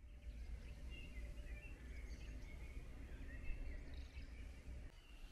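Birds singing faintly in many short, warbling phrases over a steady low rumble.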